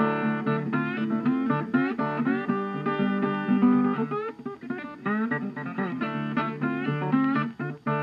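Background music led by plucked guitar, picked notes with some sliding up and down in pitch.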